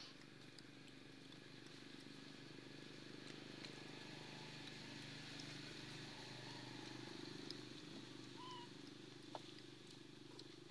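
Faint outdoor background: a steady low hum with a few faint clicks and, in the second half, a couple of short high chirps.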